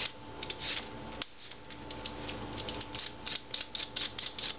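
Vegetable peeler scraping peel off a raw potato in quick, irregular strokes.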